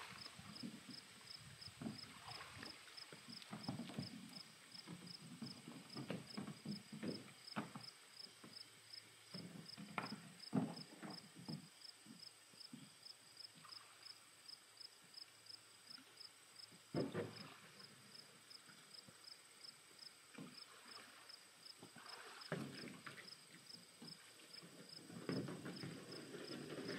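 Irregular knocks and scuffs of footsteps and gear on loose riverbed rocks, busier near the end, over a cricket chirping steadily at about two chirps a second.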